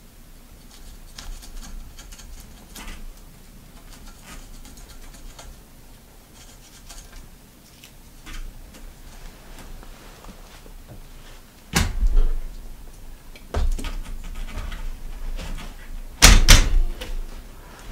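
Hands working at the end of a bicycle drop handlebar: faint rustling and small clicks of handlebar tape being handled. About twelve seconds in, several loud knocks and thumps follow.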